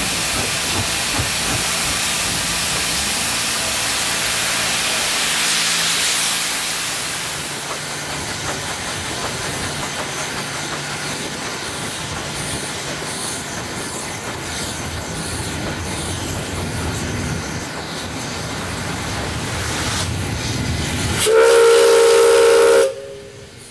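Narrow-gauge steam locomotive running with a steady hiss of steam and exhaust. Near the end its steam whistle sounds one loud blast of about a second and a half, and then the sound drops sharply.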